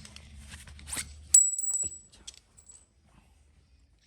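Small metal stove-leg sections being handled and knocked together, with light clicks and one sharp metallic clink about a second and a half in that rings briefly before fading.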